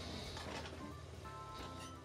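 Background music, slowly fading out.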